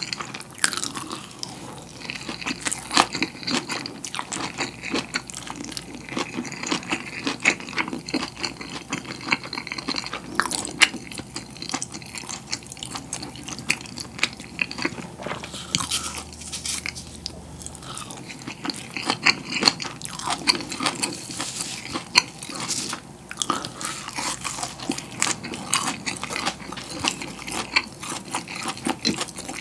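Close-up chewing and crunching of a mouthful of green-leaf wrap with pollock roe, with many sharp, wet mouth clicks that come thick and irregular throughout.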